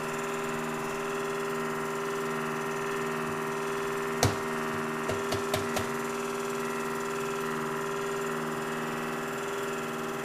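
Steady electrical or mechanical hum, made of several even tones. One sharp knock comes about four seconds in, and a quick run of four lighter clicks follows about a second later.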